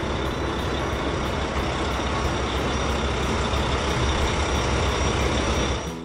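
Crane truck engine running steadily, a low rumble with hiss above it.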